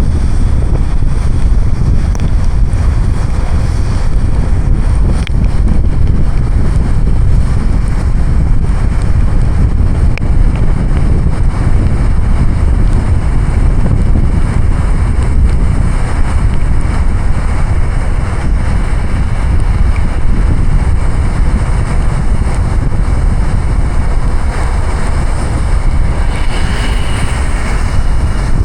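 A car driving through a heavy downpour: a loud, steady rush of rain and wet-road tyre noise.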